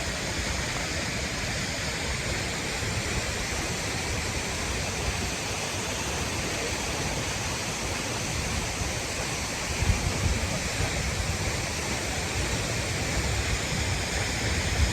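Steady roar of a tall waterfall crashing onto rocks, heard close to its base. From about ten seconds in, low gusty thumps from wind or spray buffeting the microphone come through the roar.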